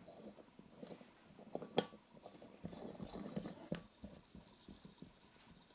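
Faint clicks and light handling noises of metal camping gas canisters held on a refill adapter: a sharp click just under two seconds in, a soft rustle around three seconds, and another click near four seconds.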